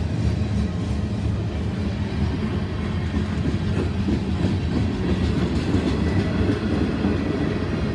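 Freight train rolling past at close range: the steady rumble of its cars' wheels running over the rails.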